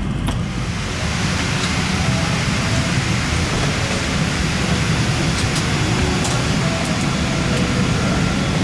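Steady rushing cabin noise inside a Boeing 777-200ER on the ground after arrival, with a few faint clicks over it.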